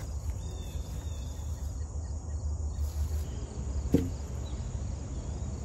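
Open-field ambience: a steady high insect chorus of crickets over a low rumble, with one sharp click about four seconds in.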